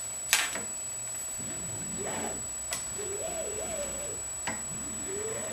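One sharp click about a third of a second in, then two lighter clicks, as hands work the rack-and-pinion drive plate and carriage of a CNC router axis. Behind them, a low wavering sound slides up and down in pitch.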